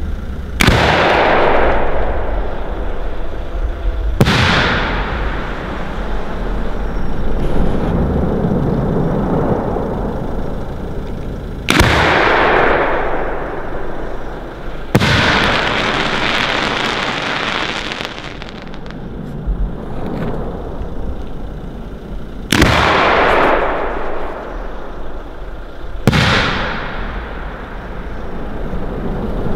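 Three 4-inch aerial display shells. Each is fired from its mortar with a sharp thump and bursts with a loud bang about three and a half seconds later, and every report trails off in long rolling echoes. The middle shell, a silver crackling coconut, is followed by a few seconds of crackling after its burst.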